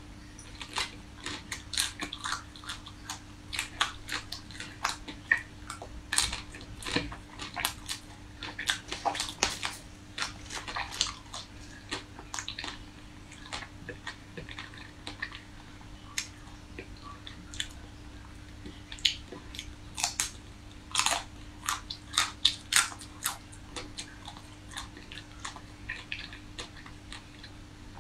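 Close-miked biting and chewing of hard-frozen chocolate-coated ice cream bars: the frozen shell cracks and crunches in many sharp, irregular snaps, thinning out into quieter chewing for a few seconds in the middle and near the end.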